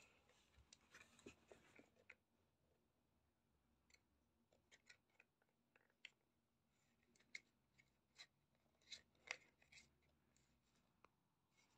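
Faint, irregular light clicks, taps and scrapes of a small cardboard slide-out box being pawed by a cat and moved by hand on a hard floor, with denser rustling in the first two seconds.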